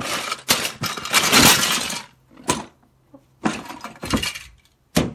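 Loud crash and clatter of hard objects falling and knocking together, about two seconds long, followed by several shorter clatters.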